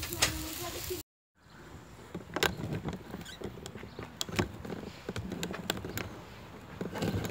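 Irregular clicks and knocks with low rubbing noise from a phone being handled or jostled in its mount. There is a brief dropout to silence about a second in.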